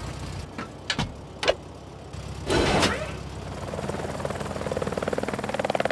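Cartoon sound effects: a few short clicks and swishes, a louder whoosh about two and a half seconds in, then a rapidly pulsing mechanical whirr that grows steadily louder.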